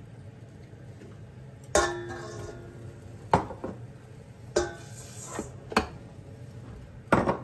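Kitchen dishes and utensils clinking against a bowl: about five separate sharp knocks spread over several seconds, the first one ringing on briefly, over a steady low hum.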